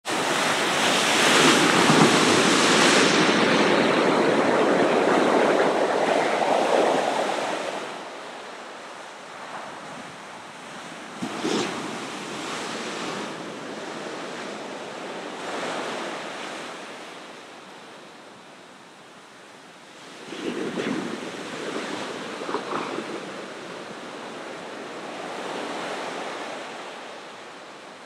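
Ocean surf: waves breaking and washing ashore, a loud rushing wash for the first seven seconds or so, then quieter surges, with fresh breaks about eleven seconds in and again around twenty to twenty-three seconds.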